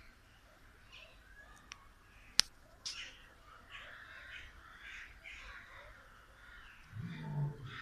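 A lion gives a short, low grunt near the end, over scattered bird calls, with a sharp click a couple of seconds in.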